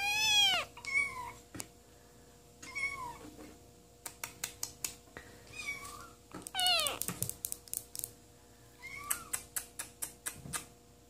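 Balinese kitten meowing, about six high, thin meows, the loudest at the start and a long falling one a little past halfway. Between the meows come runs of quick, sharp clicks.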